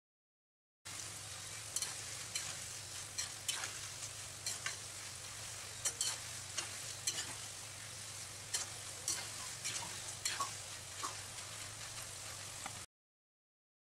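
Shredded potato deep-frying in hot oil in a kadai while a metal slotted spoon stirs it: a steady sizzle with frequent sharp crackles and clicks. The sound starts about a second in and cuts off near the end.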